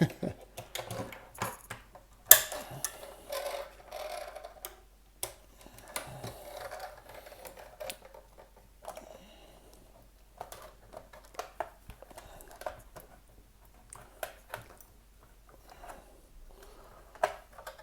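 Plastic housing of a wireless access point being pried and forced apart by hand with a tool: irregular clicks, scrapes and creaks of plastic under strain, with one sharp crack about two seconds in.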